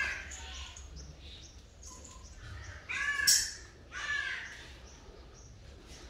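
Three short animal calls: one at the start, one about three seconds in and one about four seconds in, each rising and then falling in pitch.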